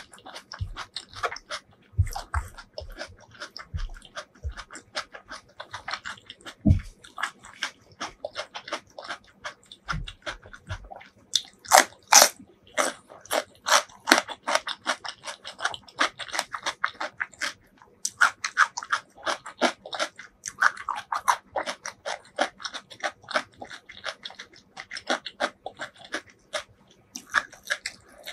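Close-miked eating: chewing a handful of rice and curry, with wet mouth clicks and smacks in a quick, irregular patter. Near the start, fingers squish the rice into the curry sauce, with a few soft thumps.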